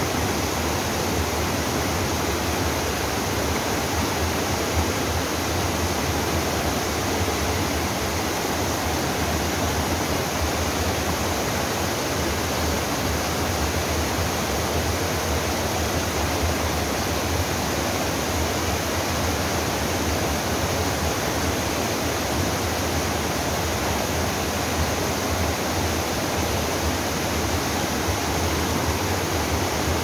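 Mountain waterfall pouring into a rock pool, with the stream rushing over boulders below it: a steady, unbroken rush of water.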